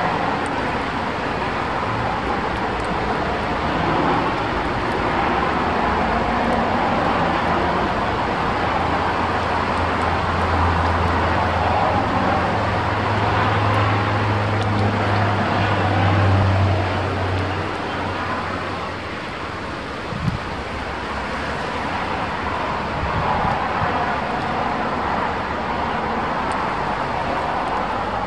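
Strong wind gusting through trees, a steady rushing that swells and eases over several seconds, with a low rumble in the middle and a single sharp knock about twenty seconds in.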